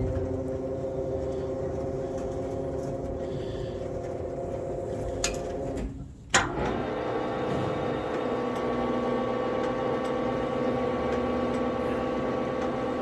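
Blanchard Model 18 rotary surface grinder's power table drive running with a steady, quiet hum as the table moves in. It cuts out briefly about six seconds in and starts again after a sharp click.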